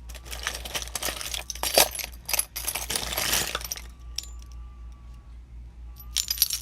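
Small hard objects clinking and rattling as they are handled and rummaged through in a box, in a dense run for the first four seconds and again briefly near the end.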